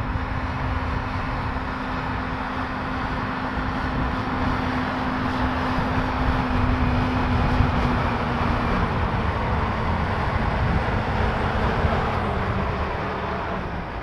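Rába-Steiger 250 articulated tractor's diesel engine working steadily under load, pulling a subsoiler through the ground. It grows louder as the tractor approaches, its drone sags slightly in pitch about halfway through, and it begins to fade near the end.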